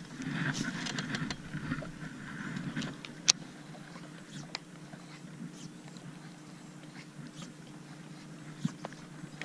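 Baitcasting rod and reel in use on a boat: a cast and line going out, then soft clicks of the reel as the lure is worked back, with one sharp click about three seconds in. A steady low hum runs underneath.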